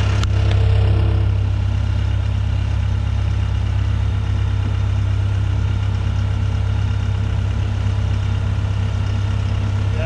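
Horizontal directional drill's diesel engine idling steadily, swelling slightly for a moment near the start.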